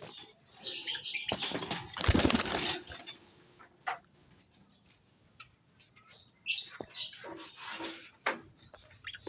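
Cockatiels flapping their wings in two flurries, about a second in and again past six seconds, the first the louder, with short high chirps among them.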